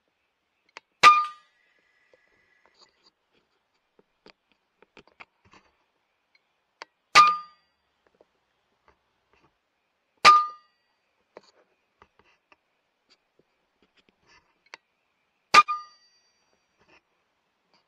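Four shots from a .22 FX Impact M3 PCP air rifle, a few seconds apart. Each is a sharp crack with a brief metallic ring, and the last is followed at once by a second, quieter knock. Faint clicks come between the shots.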